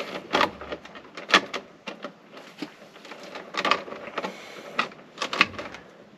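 Irregular sharp clicks, taps and knocks of stripped electrical wires being handled and pushed around inside an overhead junction box.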